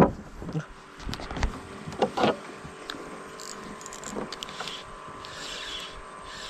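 Spinning reel and fishing rod being handled: a few scattered clicks and knocks over a faint steady hum.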